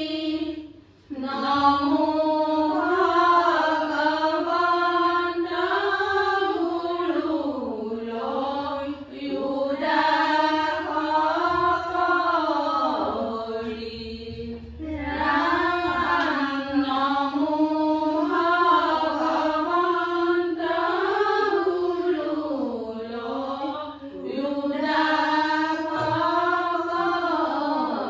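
A devotional prayer sung in long, sliding melodic phrases, each several seconds long, with brief breaks between them.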